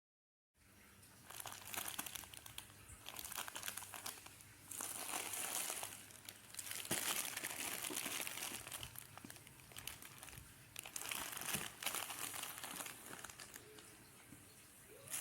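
Plastic shopping bags crinkling and rustling as they are handled, starting about half a second in and coming in bursts of a second or two.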